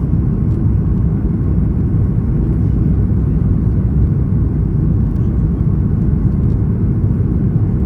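Steady low rumble of cabin noise inside a Boeing 737 MAX 8 airliner: engine and airflow noise heard from a passenger seat.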